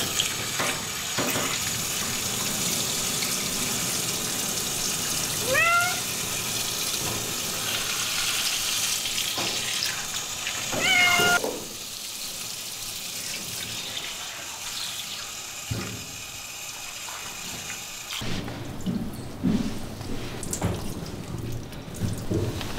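Shower-hose water spraying over a wet long-haired cat in a grooming tub, with the cat meowing twice, about 5 and 11 seconds in, each call rising in pitch. The spray quietens about halfway through.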